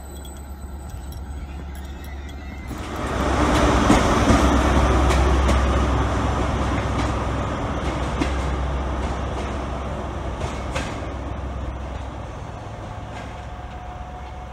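Diesel High Speed Train with Class 43 power cars running into a station platform. The train noise rises sharply about three seconds in, is loudest around four seconds, then slowly fades, with a few sharp clicks along the way.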